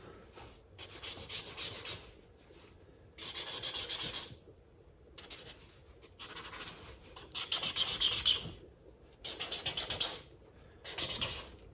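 Felt-tip marker scribbling on sketchbook paper in quick back-and-forth strokes, a scratchy rubbing sound that comes in spells of one to two seconds with short pauses between.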